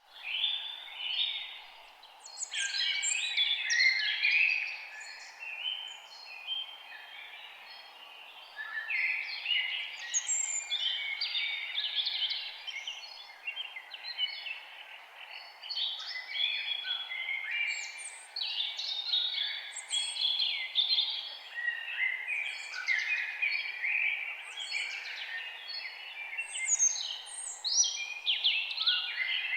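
Several forest birds singing at once, a dense chorus of overlapping chirps, trills and warbles with a short lull a few seconds in. Beneath the birds runs a steady, even background hiss.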